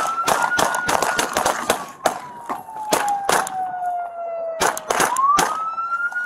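Police car siren on a slow wail, sliding down in pitch and rising again about five seconds in, over a run of sharp, irregular knocks and clatter.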